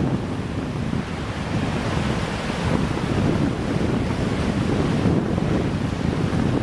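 Wind rumbling and buffeting on the microphone over the steady wash of waves on the shore.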